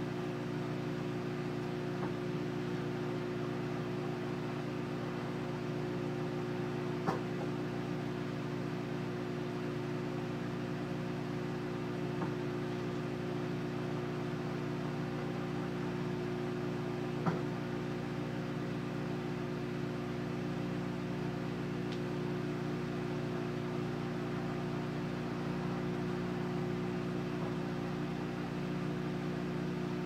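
Microwave oven running partway through a two-minute heating cycle: a steady hum, with a couple of faint clicks partway through.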